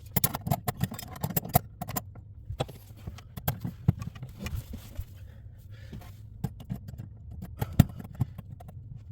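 Irregular small clicks, taps and scrapes of hand work on household electrical wiring and a metal electrical box.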